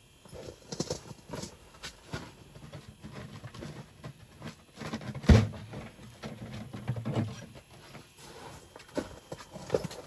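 Irregular footsteps crunching on snow-covered ice, with a single sharp thump about five seconds in.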